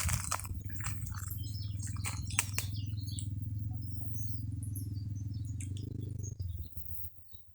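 Short, high bird chirps over a steady low hum, with scratchy clicks in the first couple of seconds. The hum stops about a second before the end.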